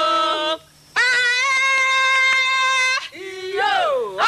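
Women singing a celebration song with long, steady held notes, broken by a short pause about half a second in, and a swooping fall and rise in pitch near the end.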